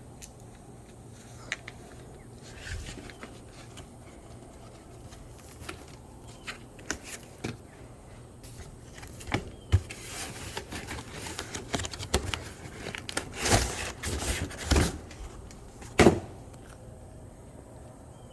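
Cardboard shipping box being opened and its packing pulled out: scattered taps and scrapes at first, then a stretch of rustling and scraping with knocks, and one loud thump about sixteen seconds in.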